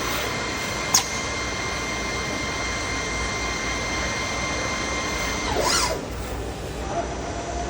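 CNC machine running with a steady high-pitched whine over machining noise, with a sharp click about a second in. Near six seconds the whine sweeps in pitch and stops.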